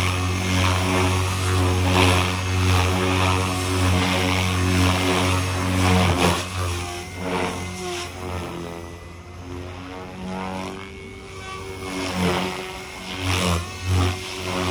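Align TB40 electric RC helicopter in flight, its main rotor spinning at about 2750 rpm and giving a steady, pitched blade hum. It is loud for the first six seconds, fainter through the middle, and swells again near the end.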